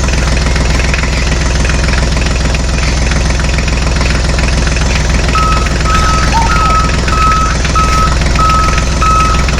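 Tractor engine running steadily. About halfway in, a reversing beeper starts, beeping about twice a second.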